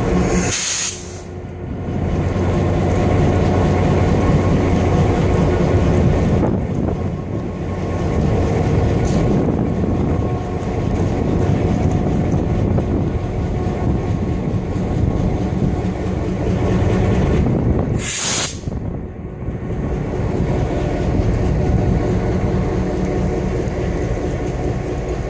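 EMD SD9 diesel-electric locomotive with its 16-cylinder 567 engine running, a steady low diesel rumble.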